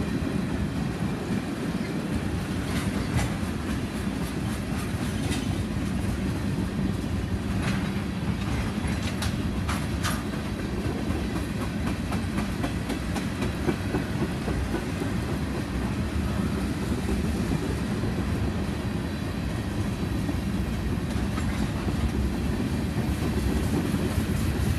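CSX freight train of tank cars rolling steadily past on the track: a continuous rumble of steel wheels on rail with a clickety-clack rhythm. A few short, sharp metallic clanks come in the first half.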